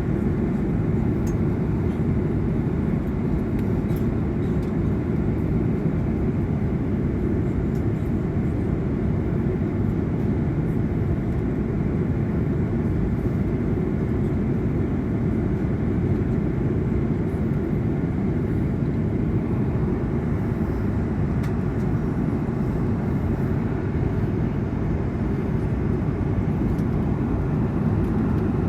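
Steady cabin noise inside an Airbus A330-200 airliner in flight: an even, low rush of airflow and engine noise that holds unchanged throughout.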